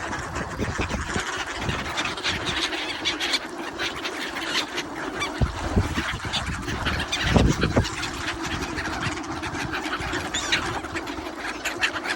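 Ducks quacking and calling over one another, with a louder low burst about seven seconds in.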